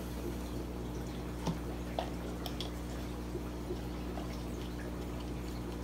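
Steady hum of aquarium equipment with water trickling and dripping from the fish tanks. A few light clicks of a plastic container being handled, two of them about a second and a half and two seconds in.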